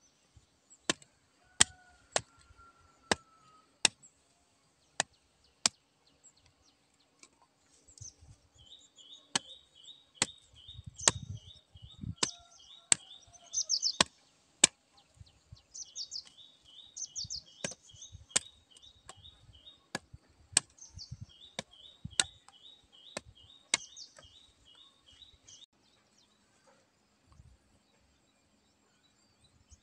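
A blade chopping cassava stems into short planting cuttings: sharp chops about once a second, stopping a few seconds before the end. Birds chirp in rapid runs in the background from about eight seconds in.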